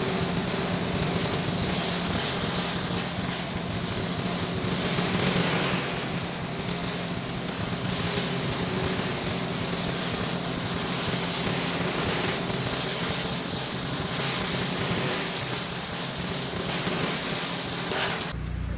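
Pressure washer running steadily: the engine drones at a constant pitch under the continuous hiss of the high-pressure water spray.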